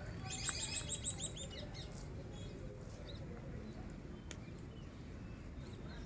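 A bird calling: a quick run of about ten high chirps lasting about a second, near the start, over a steady low background rumble.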